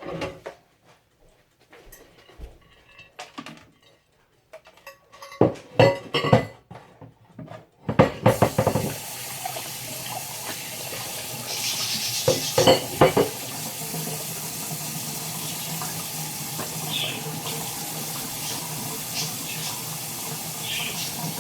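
Dishes knocking and clattering, then from about eight seconds in a kitchen tap runs steadily into the sink, with a few more clinks of dishes under the running water.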